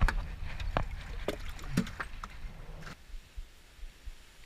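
Several sharp knocks and clunks of gear against a fiberglass boat deck, about six in the first three seconds, over a low rumble of wind on the microphone; after that it goes quieter.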